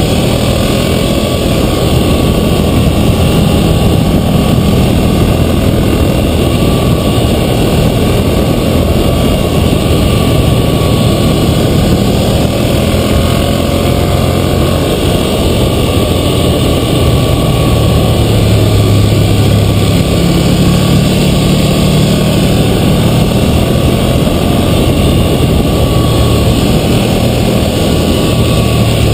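2012 Ducati Monster 1100 EVO's air-cooled L-twin engine running under way, its note rising and falling with the throttle through the bends, mixed with steady wind rush across the microphone.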